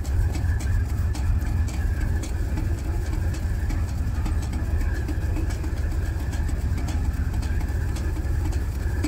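Tamar-class lifeboat's twin Caterpillar C18 diesel engines running steadily at low power, a constant low rumble, while her propellers churn the water at the stern to hold her against the pontoon.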